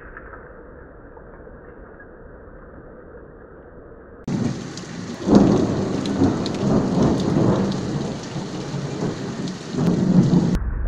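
Thunderstorm: steady rain at first, then about four seconds in the sound jumps to heavy rain with a loud thunder crash that rolls and rumbles for about five seconds, swelling again near the end.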